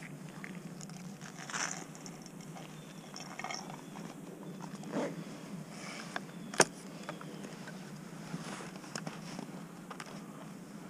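Footsteps crunching and rustling through dry fallen leaves, with one sharp snap about six and a half seconds in.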